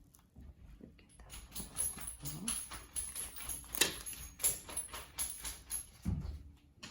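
Irregular small clicks and crackles from hands handling the screen's plastic parts and gasket during a head-unit digitizer swap.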